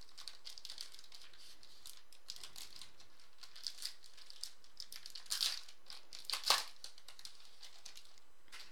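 Foil trading-card pack wrapper crinkling as it is torn open by hand: a run of small crackles, with two louder crinkles past the middle.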